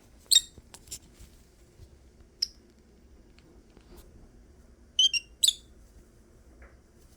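Lovebird giving short, sharp, high-pitched squeaks, the odd noises it makes while seeking out nest-like spots. There are a few scattered squeaks, with a close pair about five seconds in.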